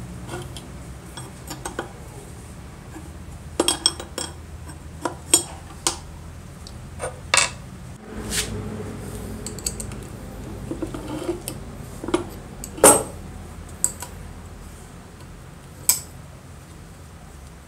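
Scattered metal clinks and knocks as a wrench and small compressor pump parts are handled and set down on a stone surface, the loudest clack about two-thirds of the way through.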